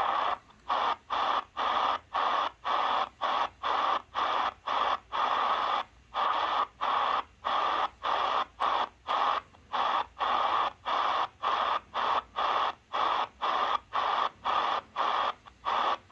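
Shortwave static hissing from a Tecsun PL-330 receiver as its tuning knob is stepped through the 19 m band, chopped into short bursts about twice a second. At each tuning step the DSP receiver briefly mutes.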